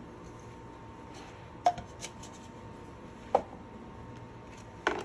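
Sharp clacks of hard objects knocking, four times about a second and a half apart, each with a brief ring.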